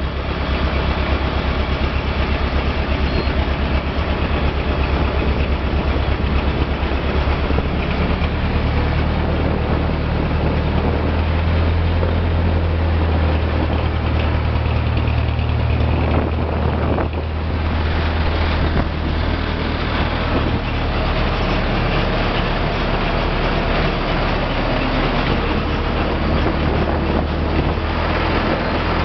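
Boat engine running steadily under way: a deep, even drone, a little louder for a while in the middle, with a steady hiss over it.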